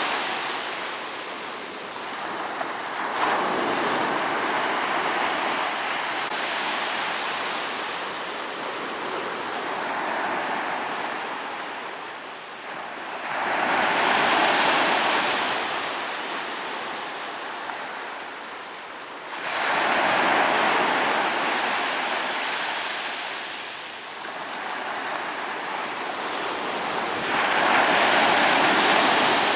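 Ocean waves breaking on a shore: a steady wash of surf that swells into a louder surge about every six seconds, then eases off.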